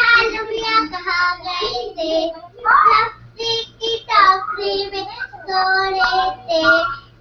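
Young girls singing a song in high voices, in short sung phrases with held notes.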